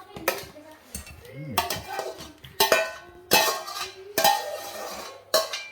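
Metal cookware clanking: about six sharp knocks of a metal utensil against a pot or pan, spaced roughly a second apart, each ringing briefly.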